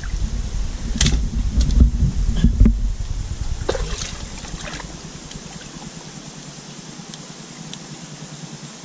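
Hand digging and scooping in wet mud at a mud-crab burrow, with heavy rubbing and knocks from close handling for the first few seconds. After that only a steady low hiss.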